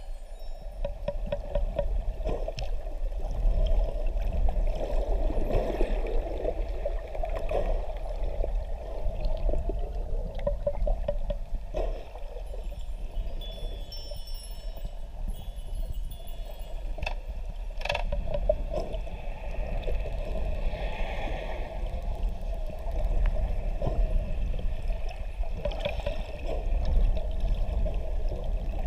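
Sea water heard through an underwater camera: a steady low rush and churn of water, with scattered sharp clicks and a few faint high tones.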